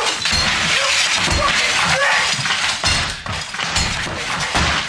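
Glass and crockery shattering in a series of crashes as a man smashes up a kitchen with a metal bar, each blow with a heavy thud beneath it.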